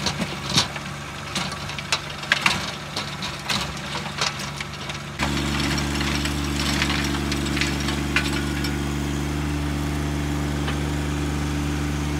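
John Deere 1025R subcompact tractor's three-cylinder diesel engine running steadily under load while it drives a rear rotary tiller through loose garden soil. Scattered sharp clicks and knocks come through over the first few seconds; about five seconds in the engine hum becomes louder and evener.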